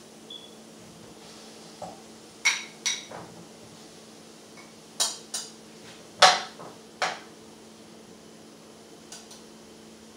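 Metal kitchen tongs clinking against a bowl and skillet while pineapple pieces are lifted into the pan: about six sharp, ringing clinks in the middle of the stretch, over a steady low hum.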